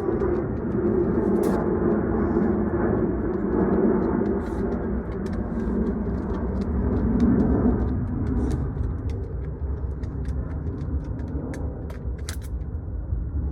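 Overweight beagle snoring: a loud, rough low snore that swells and eases irregularly and grows weaker over the last few seconds, with faint clicks above it.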